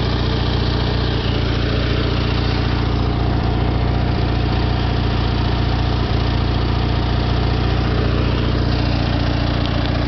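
Craftsman LT1000 riding mower's engine running steadily at a constant speed, with an even, unchanging drone.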